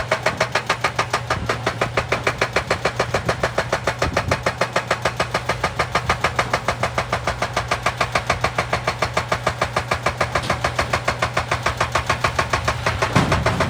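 Excavator-mounted hydraulic breaker hammering rock in rapid, even blows, over the excavator's steady engine hum.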